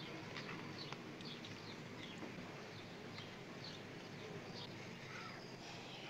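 Faint, irregular chirps of small birds, a few a second, over a steady low hiss of outdoor background.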